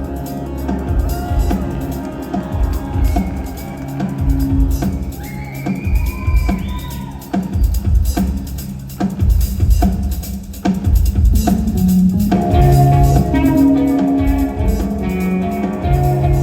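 Live band playing an instrumental passage: drum kit with guitar and bass, with some gliding high tones in the middle. From about twelve seconds in it settles into a steadier riff of repeated bass and guitar notes.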